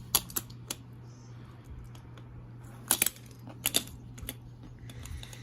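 Scattered light clicks and taps of small hard objects being handled, about eight in all with a pair close together near the middle, over a steady low hum.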